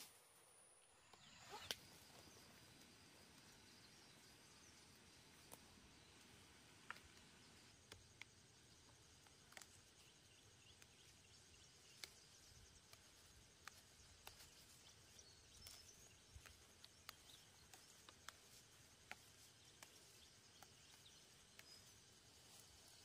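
Near silence: faint rural outdoor ambience, with faint high insect chirping and scattered soft clicks and ticks.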